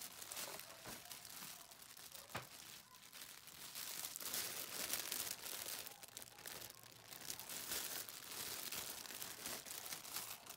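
Clear plastic packaging crinkling as a bagged bundle of artificial vine plants is handled, a dense run of crackles with a couple of sharper snaps in the first few seconds.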